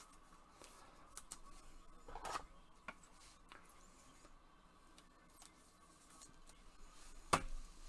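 Faint handling of a trading card being slid into a rigid clear plastic toploader by gloved hands: light plastic clicks and rubs, with a sharper click near the end.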